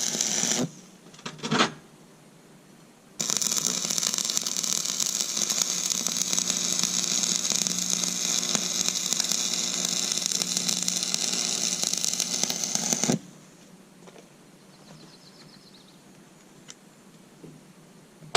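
A steady, noisy metal-shop tool sound with a low hum under a strong hiss, running for about ten seconds and stopping abruptly. An earlier stretch cuts off within the first second, and there is a brief blip shortly after.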